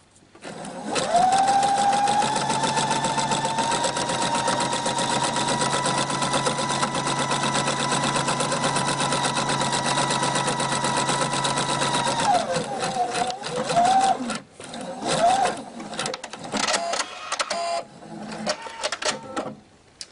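Electric sewing machine sewing a straight-stitch seam: the motor whine rises as it speeds up about a second in, runs at a steady speed, then slows and stops about twelve seconds in. After it come scattered clicks and rustles as the fabric is handled.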